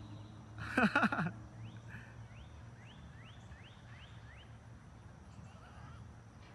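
A loud, harsh call about a second in, then a bird giving about seven short rising chirps in quick succession, over a faint steady low hum.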